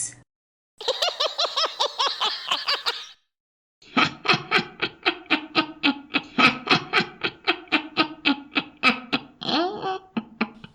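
A witch's cackle: a woman's voice laughing in rapid high 'ha-ha-ha' pulses, processed with effects. A short cackle, a brief silence, then a longer run of about five laughs a second that ends in a rising squeal near the end.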